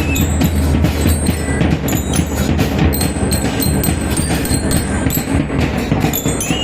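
Drum and bell-lyre band playing: a steady drum beat with bell lyres ringing over it.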